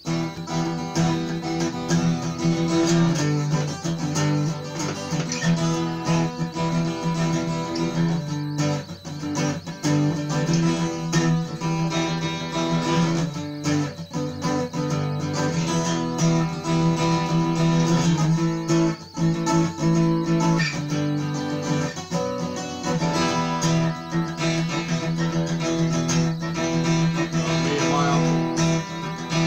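Acoustic guitar strummed in chords, played solo.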